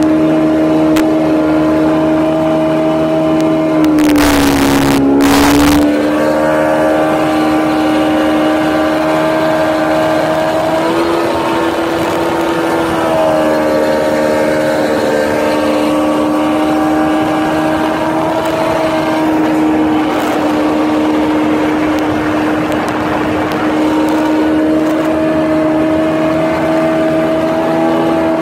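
1987 Funjet jet boat's engine running at speed, a steady drone whose pitch dips and comes back up about four to six seconds in and again around eleven to thirteen seconds in. A brief rush of noise rides over it as the pitch first dips.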